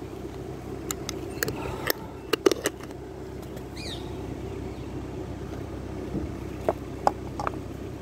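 A steady low mechanical rumble, with scattered sharp clicks and taps, most of them about one to three seconds in and a couple more near the end. A brief high chirp sounds about four seconds in.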